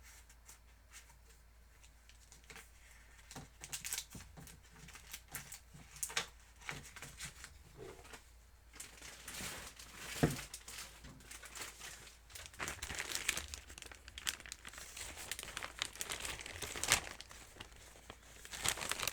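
Paper and sheet crafting supplies being handled, crinkling and rustling in irregular bursts after a quiet start, with one sharper tap about ten seconds in.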